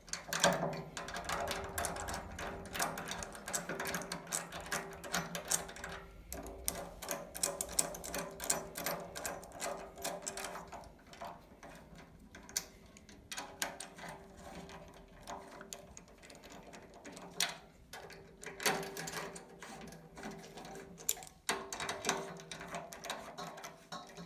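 A hex socket on a small extension winding M10 cap-head bolts into the steering rack's bevel-box bracket: runs of rapid, light metallic clicking that stop and start.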